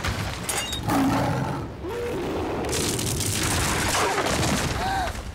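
Cartoon destruction sound effects of a film set collapsing: a dense, continuous din of crashing, booming and shattering debris.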